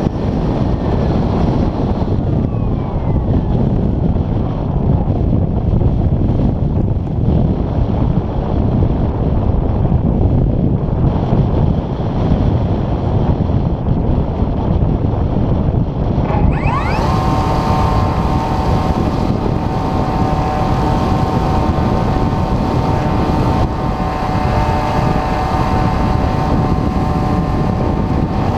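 Wind rushing over the onboard camera of a 2400mm RC glider in flight. Past the middle its electric motor spools up with a rising whine and then runs at a steady high whine with added propeller hiss.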